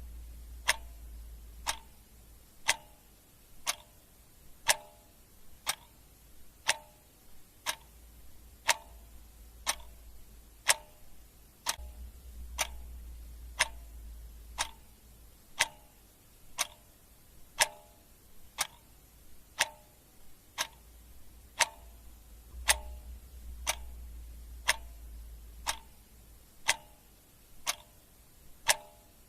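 Clock ticking sound effect: a steady tick-tock at about one tick a second. A faint low hum comes and goes beneath it.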